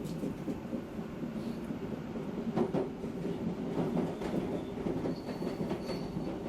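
Odakyu commuter electric train running along the line: a steady rumble with irregular clicks of the wheels over rail joints. A faint high whine joins about five seconds in.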